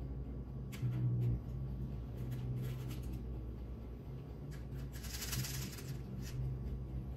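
Cupcake batter being scooped with a measuring cup from a stainless-steel bowl into paper baking cups in a metal muffin tin: scattered light clicks and taps, and a short rustling scrape about five seconds in, over a steady low hum.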